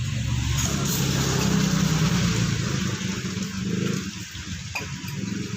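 A small engine running steadily with a pulsing low note and a hiss over it, easing off about four seconds in.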